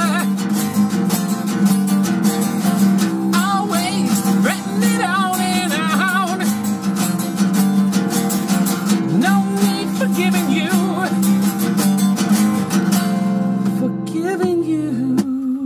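A man singing with vibrato over a strummed acoustic guitar, played live in a car's cabin.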